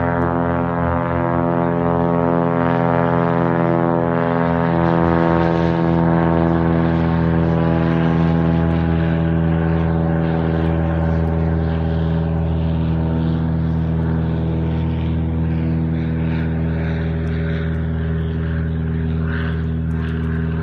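Floatplane's propeller engine at full takeoff power: a loud, steady, even-pitched drone that eases off slightly near the end as the plane climbs away.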